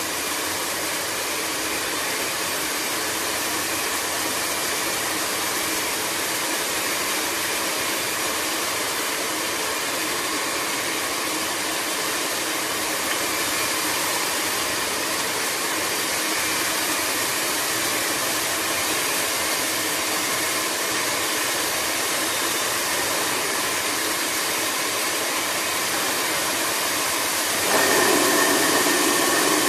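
Stone bead fine milling machine running, a steady, even whirring noise. Near the end it grows louder, with a lower hum and a steady high tone joining in.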